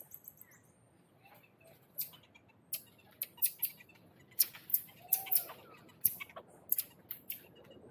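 A series of short, sharp, very high-pitched animal chirps, about a dozen of them, starting about two seconds in.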